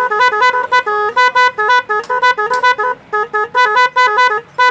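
Electronic 22-sound motorcycle 'magic' horn playing a fast tune of short beeping notes that jump between a few pitches, with a couple of brief pauses.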